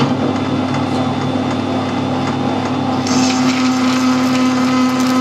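Metal lathe starting up and running, its chuck spinning a mild steel bar while a freshly hand-sharpened 5/8-inch twist drill bores into it: a steady motor hum with a scratchy cutting noise that grows about three seconds in. The drill is cutting cleanly rather than tearing through the steel.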